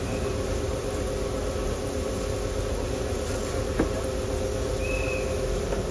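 Steady machine hum over background noise, with a single sharp click about four seconds in.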